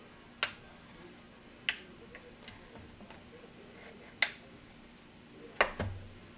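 Four sharp clicks and taps, spaced a second or more apart, the last two the loudest: a small spatula knocking against the rim of a disposable foil pie pan while loosening a potato crust.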